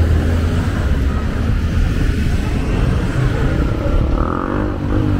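Street traffic: vehicle engines running close by, with a steady low rumble.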